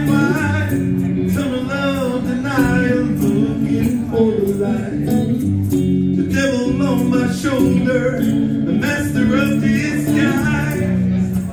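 Live rock song: a male singer's lead vocal over an electric guitar, sung and played continuously.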